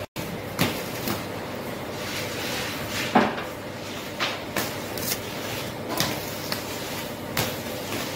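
Irregular wooden knocks and scrapes of a long wooden baker's peel working loaves out of a bakery oven and onto a stone counter. There are about nine short knocks, the loudest about three seconds in, over a steady background noise.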